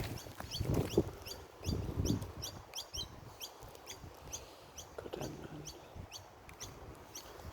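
Birds chirping in short, high, repeated notes, about two or three a second, with a few lower, louder sounds mixed in; the loudest of these comes about a second in.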